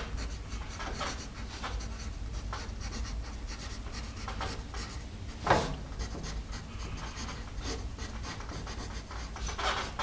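Paper Mate EverStrong #2/HB wood-cased graphite pencil writing block capitals on graph paper: a run of short scratchy strokes, with one sharper, louder stroke about five and a half seconds in.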